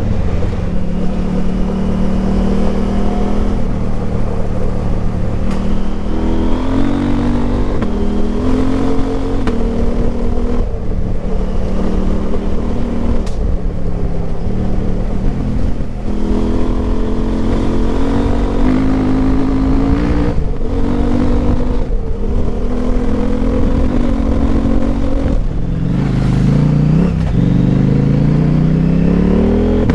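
KTM 890 Adventure R's parallel-twin engine through a Wings slip-on exhaust with the dB killer removed, under way and pulling through the gears. Engine pitch rises under throttle and breaks off briefly several times at shifts, then climbs steeply in a hard acceleration near the end.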